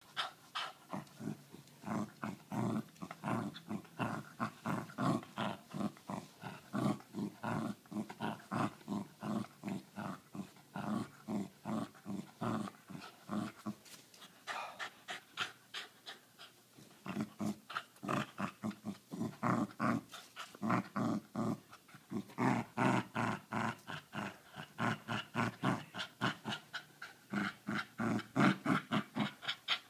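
Australian Cattle Dog growling in a long run of short, rhythmic growls, about two or three a second, with a brief lull about halfway through. It growls around a tennis ball held in its mouth, guarding the ball against a hand that is trying to take it.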